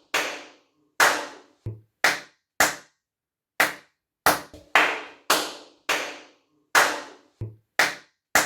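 Hand claps, about fourteen at an uneven pace, each followed by a short ring of room echo. They test how much the room still reverberates with the DIY rockwool panels in it.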